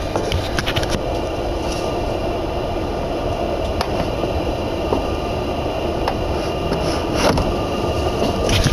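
Steady running noise of a Z 20900 double-deck RER C train heard from inside, with wheel-on-rail rumble and a steady whine. Scattered sharp clicks from the track come through, the loudest about seven seconds in.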